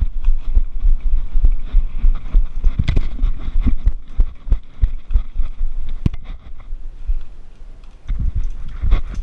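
Heavy low thumps and rustling from a body-worn action camera jostled as its wearer moves on foot, several thumps a second, easing off briefly about seven seconds in before picking up again.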